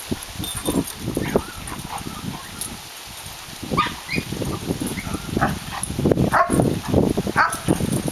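A border collie mix and a German shorthaired pointer play-fighting, giving short barks and yips in an irregular string that gets louder and busier about halfway through.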